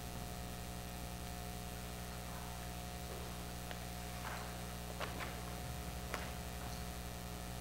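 Steady electrical mains hum, with a few faint soft knocks about four to six seconds in.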